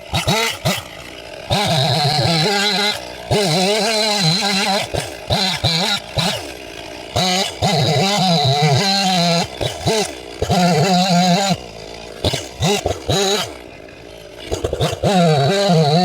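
Stihl two-stroke chainsaw cutting firewood in repeated full-throttle bursts, its pitch dipping and recovering between cuts and dropping back to idle for a moment near the end.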